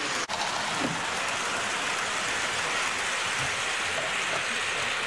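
Hornby tinplate model trains running on tinplate track: the steady hiss-like running noise of wheels on the metal rails, with a brief dropout just after the start.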